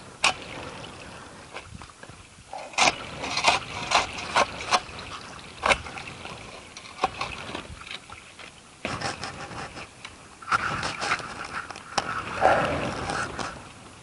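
Digging by hand with a tool in rough, stony ground: irregular sharp knocks and clicks of the blade hitting debris, with a few short scraping strokes through the soil.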